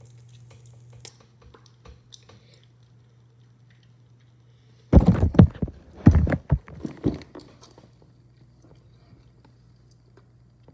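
Phone handling noise: a loud cluster of bumps and rubbing on the microphone lasting about two seconds, starting about five seconds in, over a faint steady hum.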